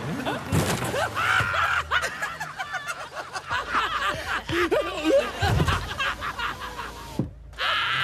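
Several voices laughing and snickering in quick, uneven bursts, the laughter given to the horses as if they were laughing. It breaks off abruptly about seven seconds in.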